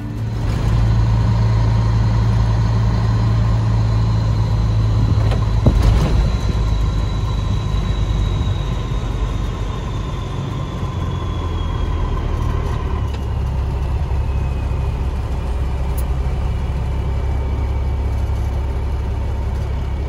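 Peterbilt semi-truck's diesel engine running under way, heard from inside the cab as a steady low drone. A faint whine slowly drops in pitch through the middle, and there is a single knock about six seconds in.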